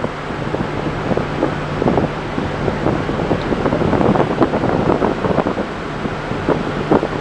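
Wind buffeting the microphone in uneven gusts, over a steady low hum from the moving ship.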